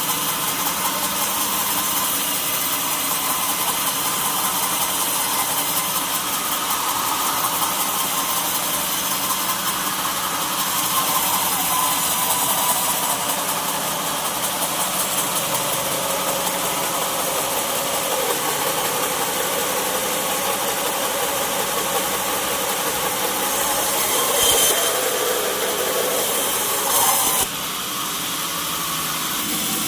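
Sawmill machinery running steadily, a motor's tone slowly sinking in pitch and then cutting off abruptly near the end.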